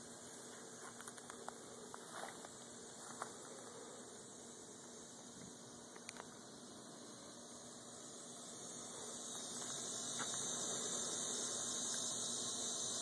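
Faint outdoor background: a steady high-pitched hiss that grows louder about nine seconds in, with a few light clicks in the first few seconds.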